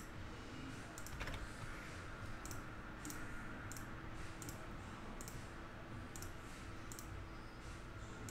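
About a dozen faint, irregular clicks of a computer mouse and keyboard.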